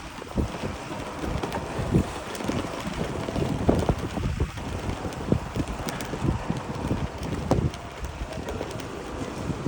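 Strong wind buffeting the microphone in irregular gusts, with low rumbling thumps.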